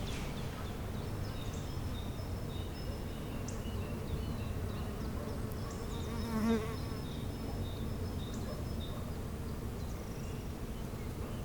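A bee buzzing briefly past close by, about six and a half seconds in. Faint bird chirps sound over a steady low background noise.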